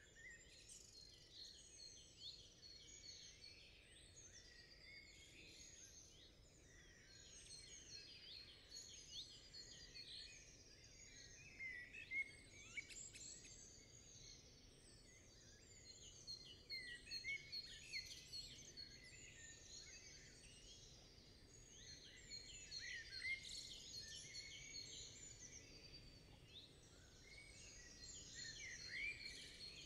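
Faint chorus of many small songbirds: overlapping quick chirps, whistles and trills, with a few louder calls standing out now and then.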